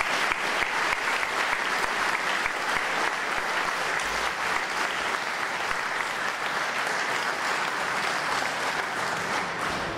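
Large audience applauding in a hall: dense, steady clapping.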